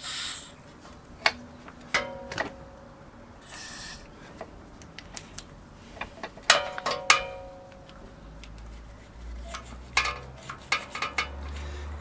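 Metal clinks and taps from handling a motorcycle rear brake caliper, several ringing briefly. Two short hisses come near the start, and a low rumble runs under the last few seconds.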